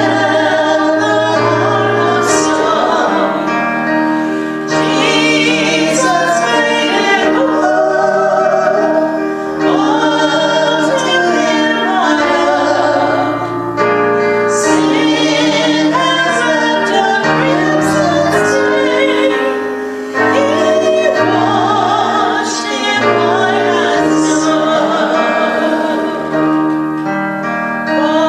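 A hymn sung by singers over sustained instrumental chords, phrase by phrase with short breaths between lines.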